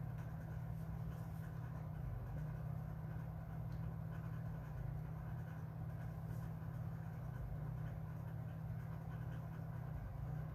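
Lawn mower engine running steadily, a low continuous drone.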